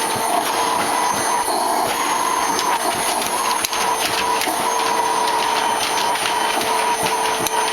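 Household vacuum cleaner running steadily, with a constant hum and whine, as it is run over a golden retriever's coat; small clicks and knocks come through now and then.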